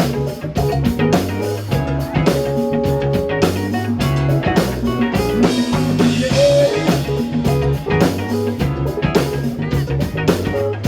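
Live rock band playing: electric guitar over a steady drum-kit beat, loud and full.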